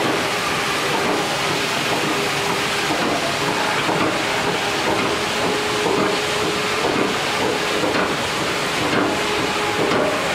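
Sawmill log-handling chain conveyors running: a steady hiss and hum with irregular mechanical clattering.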